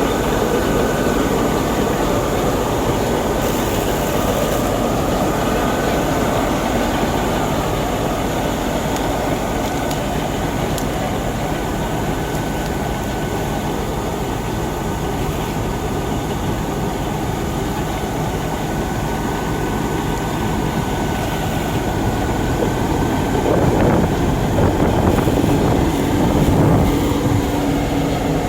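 Combine harvester running hard while its unloading auger pours threshed rice into a truck: a loud, steady mechanical drone with a thin steady whine, getting somewhat louder and rougher near the end.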